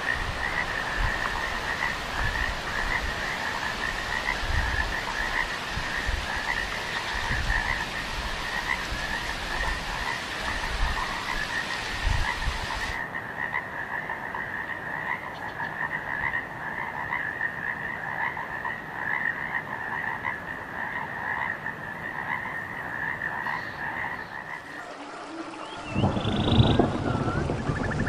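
A chorus of frogs calling steadily in a fast, pulsing trill over the hiss of heavy rain. Near the end the frog calls stop and a louder rush of rain and wind takes over.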